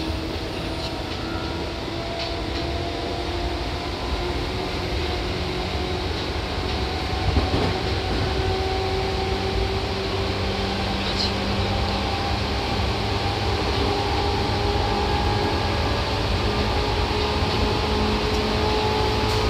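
Seibu 2000 series electric train running, heard from on board: steady rumble of wheels on rail, with the motor whine of its chopper-controlled traction motors slowly rising in pitch as it gathers speed. A single knock is heard about seven seconds in.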